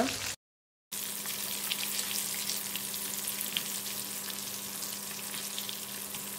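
Breadcrumb-coated prawns deep-frying in hot oil in a wok: a steady sizzle with many small crackles while a spoon turns them. The sound drops out completely for about half a second near the start.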